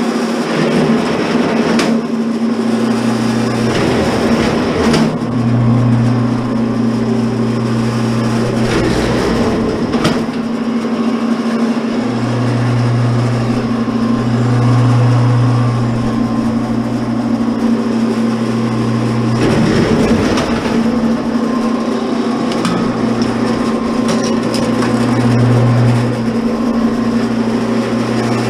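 A commercial electric wire stripper's motor runs with a steady hum, while a deeper hum swells and fades in several stretches as thick copper service wire is fed through the cutter. Knocks sound a few times.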